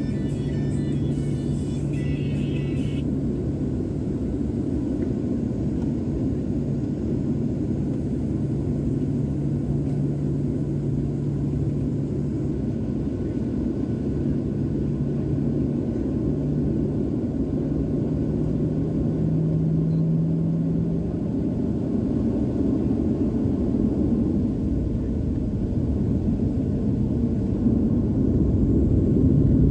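Cabin noise inside a Boeing 737-900 taxiing, its CFM56-7B turbofans at low thrust giving a steady rumble with a low hum, a little louder near the end. A brief cluster of high tones rings in the first few seconds.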